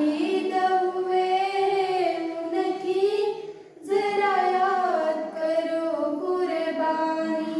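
Young girls singing a slow melody with long held notes that glide in pitch, in two phrases with a brief breath about four seconds in.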